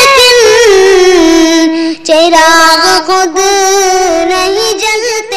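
A high voice singing a naat, an Urdu devotional song in praise of the Prophet, holding long wavering notes with a short break about two seconds in.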